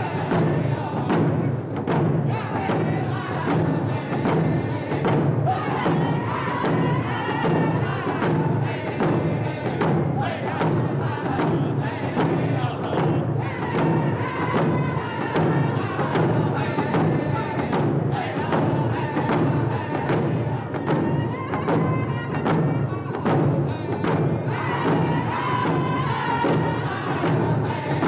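Round dance song: a group of men singing together in unison while beating hand-held frame drums in a steady, even rhythm.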